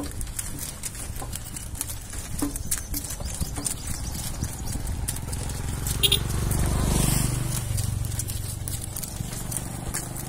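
Bullock cart rolling along a paved road: the two bullocks' hooves clop and the cart knocks and clicks over a steady low rumble. About six seconds in, a motor vehicle's hum swells and fades as it passes.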